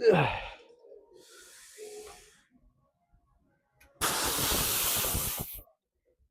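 A man breathing out hard through his mouth while straining through a weight-lifting set. A short grunt falling in pitch comes right at the start, then a faint breath, and about four seconds in a loud, forceful exhale lasting about a second and a half.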